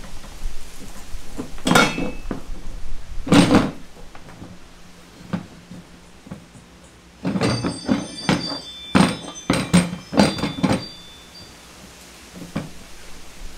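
Hollow thunks and knocks of a plastic cart bed and its steel frame parts being handled during assembly. Two heavy thuds come in the first few seconds, then a quick run of sharper knocks and light metallic clinks near the middle as a bolt is worked through the frame.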